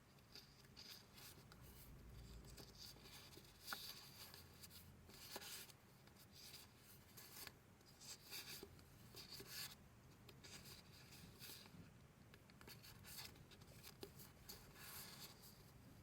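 Faint, irregular rustling and sliding of paper sheets being handled, with a couple of light clicks.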